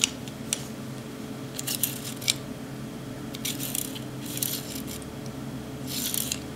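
Light metallic clicks and scrapes, a few at a time every second or so, from the all-steel nickel-plated Hege Uberti 1873 Single Action Army revolver being handled and its ejector worked by hand.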